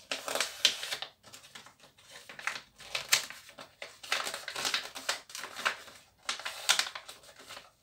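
A small gift bag folded from catalogue pages crinkling and rustling as it is handled and its creases are popped out and folded down, in several bursts of crackling paper noise with short pauses between.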